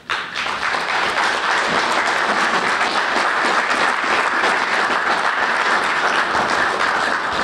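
Audience applauding, starting suddenly and holding steady.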